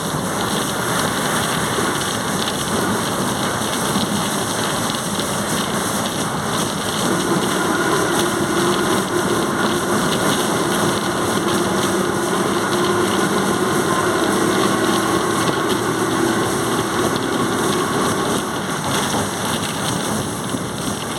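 Volkswagen 17.230 OD bus under way, with engine and road noise throughout. A steady whining tone from the transmission comes in about a third of the way through and fades out near the end.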